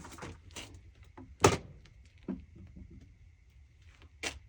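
Knocks and clunks of gear being handled and set down on a shooting bench, with a sharp loud knock about a second and a half in and another near the end.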